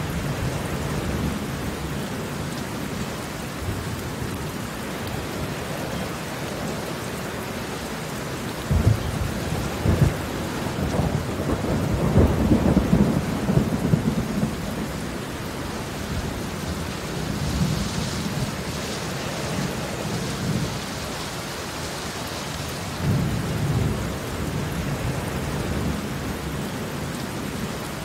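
Heavy rain falling steadily on concrete pavement, a dense hiss of drops splashing on the wet ground. A low rumble swells up about nine seconds in and is loudest around twelve seconds, with a shorter one near the end.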